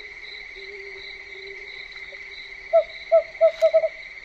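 Crickets chirring steadily in the night, and a bit before the end a short run of about six hooting calls that come faster and faster, from a night bird, likely an owl.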